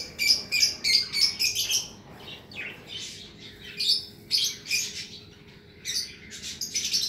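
Lovebirds chirping in quick, shrill bursts: a dense run in the first two seconds, then more around the middle and again near the end.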